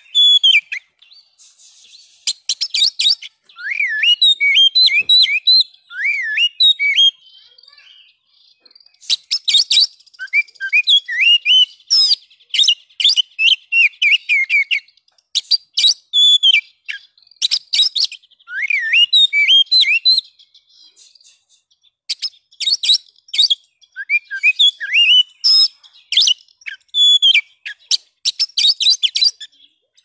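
Oriental magpie-robin (kacer) singing loudly in repeated phrases of clear, sliding whistles mixed with sharp, harsh clicking notes, each phrase broken off by a short pause.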